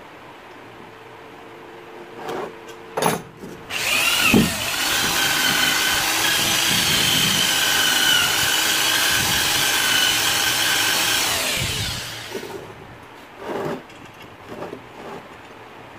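Electric drill with a wire wheel spinning up about four seconds in and scouring rust off steel for about eight seconds: a steady high whine over harsh scratching, which winds down near the twelfth second. A few knocks come just before it starts and after it stops.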